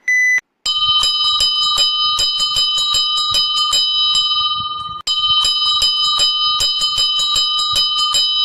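Timer's time-up alarm: a short electronic beep, then an alarm bell ringing with rapid repeated strikes, in two runs of about four seconds with a brief break between them, signalling that the countdown has finished.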